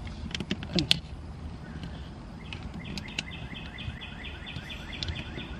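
A few sharp plastic clicks as a suction-cup phone mount is handled on the windshield, then a bird outside repeating a short high chirp about four to five times a second.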